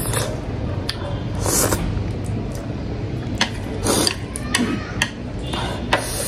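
Close-up eating sounds: chopsticks clicking sharply against the plate several times, between short slurps and chewing of instant ramen noodles, over a steady low hum.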